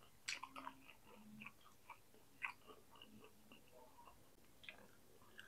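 Faint chewing of fried tempeh: soft crunches and small wet mouth clicks at irregular intervals.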